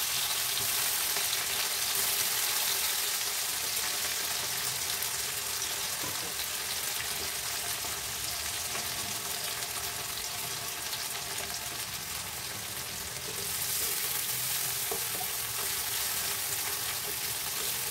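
Sliced onions sizzling steadily as they fry in hot mustard oil in a wok, a continuous crackling hiss that grows a little louder in the last few seconds. Near the end a spatula stirs the onions through the oil.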